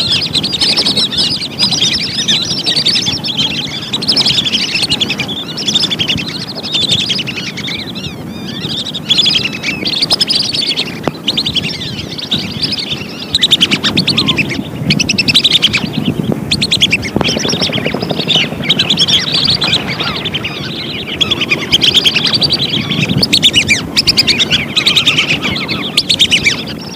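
A flock of whistling ducks (belibis) calling in a dense, continuous chorus of high twittering whistles, many birds over one another. This is the kind of call recording played as a lure to draw wild whistling ducks in.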